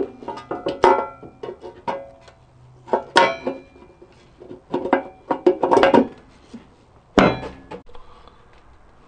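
Sharp metal clinks and knocks in irregular clusters, several ringing briefly: parts and tools being handled while the quad's vario (CVT) cover is fitted.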